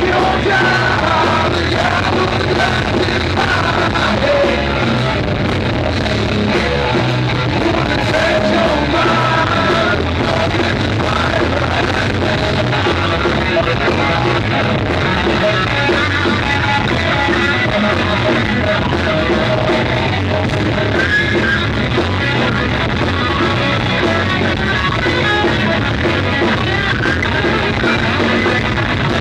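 Live rock band playing loud and steady: electric guitars and drums, with a vocalist singing into a microphone, heard from the audience.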